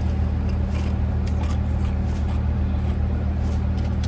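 Steady low hum of a car idling, heard from inside the cabin, with a few faint small clicks.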